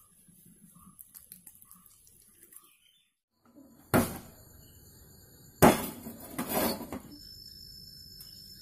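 Gas stove burner lighting with a sudden loud burst of flame, then, about a second and a half later, loud clanks of a metal pan on the stove. Before that, only faint handling sounds of hands rubbing masala into a fish.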